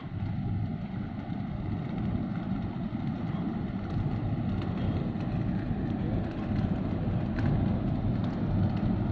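Low, uneven rumble of a large container ship passing close by, mixed with wind buffeting the microphone, growing slowly louder.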